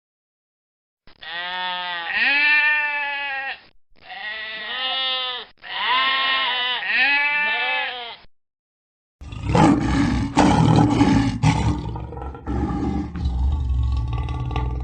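Three drawn-out animal calls, each rising and falling in pitch, followed after a short gap by a rough, low, pulsing roar that is most like a big cat's.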